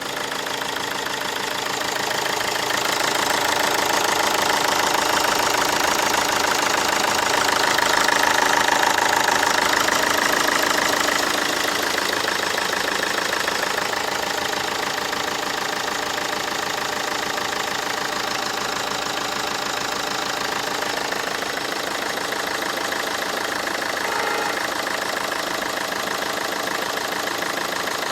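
Peugeot 307 2.0 HDi four-cylinder common-rail diesel idling with a knock from a fuel injector, which appeared after the injector's copper sealing washer and plastic insert were replaced. It gets a little louder for a few seconds about a third of the way in.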